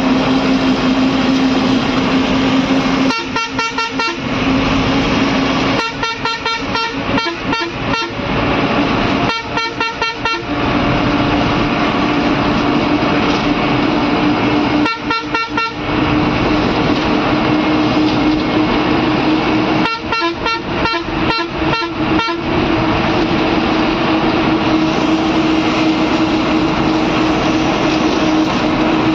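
A bus's engine drones steadily inside the cab, slowly rising in pitch as it pulls along the road. About five times, the horn sounds in short bursts of rapid, stuttering pulses.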